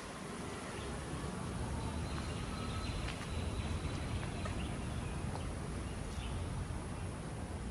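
Outdoor ambience: a steady low rumble of wind on the microphone with distant traffic, and faint short bird chirps now and then.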